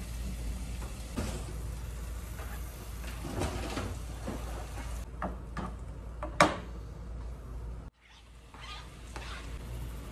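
A spatula stirring and scraping in a skillet on a gas stove, with one sharp knock against the pan about six seconds in, over a steady low hum.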